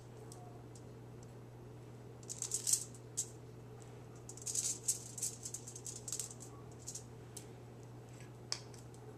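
Reynolds Wrap non-stick aluminium foil crinkling and crackling under hands as rolled cookie-dough balls are pressed down onto it. The crackles come in two clusters, about two seconds in and again from about four and a half to seven seconds, with a single sharp tick near the end, over a steady low hum.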